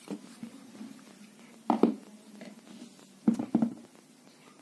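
Handling noise from an opened angle grinder being moved about: two short clusters of knocks and clatters, the first nearly two seconds in and the second about a second and a half later, over a faint low hum.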